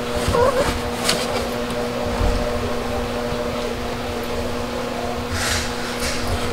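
A steady low hum with a constant tone and a low rumble beneath it, broken by a couple of brief soft rustles, about a second in and again about five and a half seconds in.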